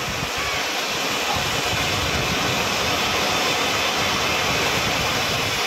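Ground fountain firework (anar) spraying sparks with a loud, steady rushing hiss.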